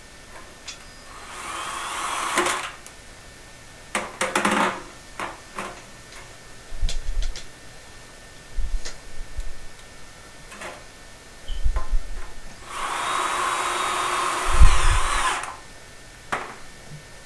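Screw gun driving self-tapping sheet metal screws into a water heater's flue pipe, in two runs: one of about a second near the start and a longer one of about three seconds later on. Between the runs come scattered clicks and knocks from handling the metal pipe.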